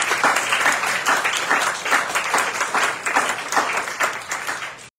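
Audience applauding: many hands clapping at once in a dense, steady patter, easing off slightly near the end.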